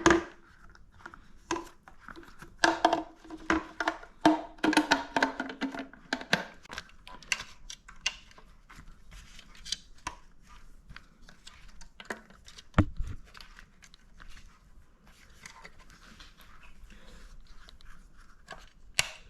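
Clicks and rattles of hands handling a motorcycle's plastic headlight housing while seating a new LED bulb, most of them in the first few seconds. There is one heavier knock about thirteen seconds in.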